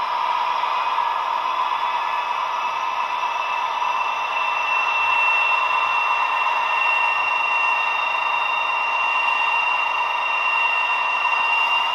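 Recorded engine sound of a DB class 218 diesel locomotive's TB11 diesel engine, played through the small built-in speaker of a Roco H0 model locomotive, so it sounds thin and without bass. The engine runs steadily, and after about five seconds it grows a little louder while a high whine slowly rises in pitch.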